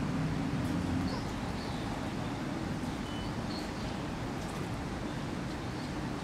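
Steady outdoor background noise with a low hum that drops away about a second in, and a few faint, short high chirps.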